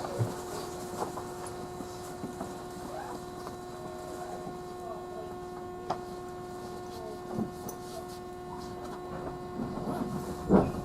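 Steady electrical hum inside a 311 series electric train car while it stands still, with a few faint clicks and a louder knock near the end.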